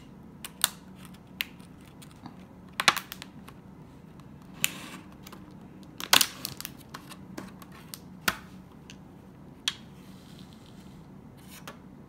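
Thin clear plastic takeout food container being handled and opened: irregular sharp clicks and short crackles of the flexing plastic lid, loudest about three and six seconds in.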